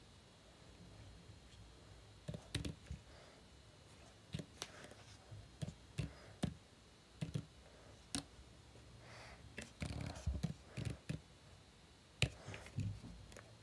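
Faint, irregular clicks and taps of a computer keyboard and mouse as numbers are typed into form fields, over a low steady hum.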